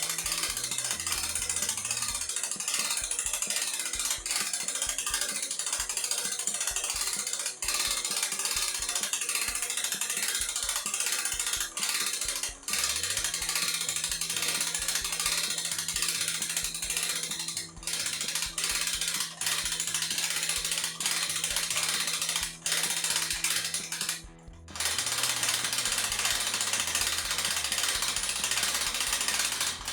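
Hand-cranked 2500 lb winch with a 6 mm steel cable being wound, its ratchet pawl clicking rapidly and continuously as it moves the sawmill head, with a brief pause about 24 seconds in.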